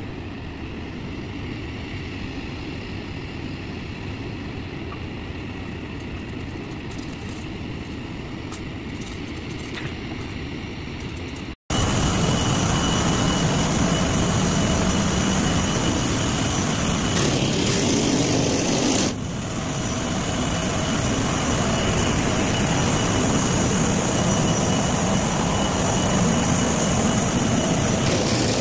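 Steady noise of jet aircraft running on an airport ramp: a low rumble at first, then, after a sudden cut about twelve seconds in, a louder, fuller rush with a thin, steady high whine.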